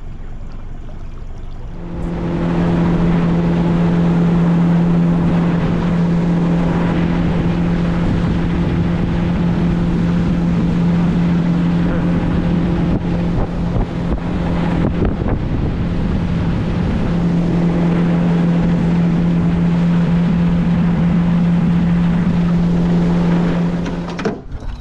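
Outboard motor driving a boat along at speed: a steady low drone with wind and water rushing past. It starts about two seconds in, after quieter wind and water, and drops away near the end.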